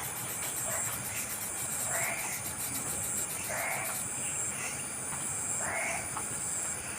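A young coucal gives three raspy, hissing calls, each about half a second long and falling in pitch, a second and a half to two seconds apart, with a steady high cricket-like chirring behind them.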